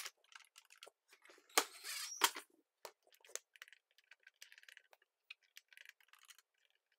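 A cordless drill-driver whirs briefly, under a second, about a second and a half in, driving a screw into the dishwasher faceplate and ending with a click. After that come scattered faint clicks of the dishwasher's control-panel buttons being pressed.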